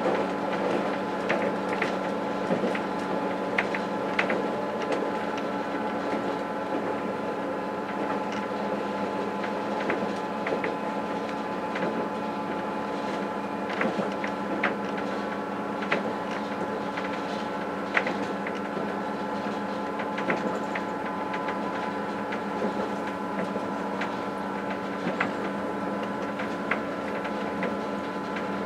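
Interior running noise of a B 81500 (AGC bimode) train: a steady hum with several held whining tones, dotted with light irregular clicks and rattles.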